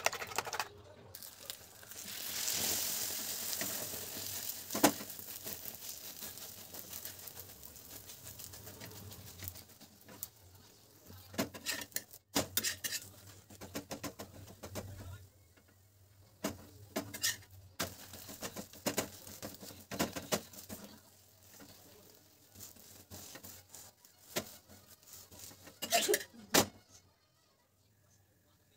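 Egg frying on a paratha on a hot flat iron griddle: a loud sizzle begins about two seconds in and slowly dies down to a softer sizzle. A spatula then scrapes and taps on the griddle in scattered clicks.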